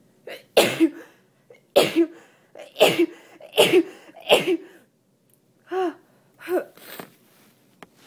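A fit of wet, congested human sneezes: five loud ones in quick succession, about a second apart, then two softer, shorter ones near the end. The sneezing comes from a head cold with heavy congestion on top of a pollen allergy.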